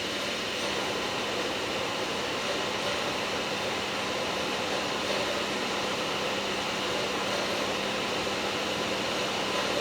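Hitbox TIG200PACDC TIG welder in use: a steady hiss with a constant low hum.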